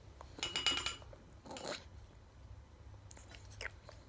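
A metal spoon clinking and scraping against a dish while the next spoonful of baby food is scooped. A short ringing clink comes about half a second in and a brief scrape about a second later, then a few faint clicks.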